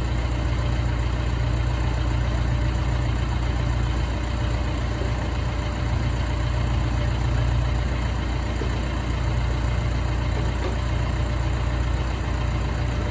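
Large diesel engine on an old truck-mounted drill rig running steadily, with a deep, even hum that doesn't change.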